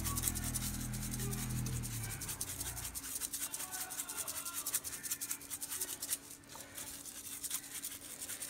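Dry seasoning rub being shaken from a spice shaker over raw whole chickens: a fast, uneven run of rattling shakes. A low steady hum in the background stops about three seconds in.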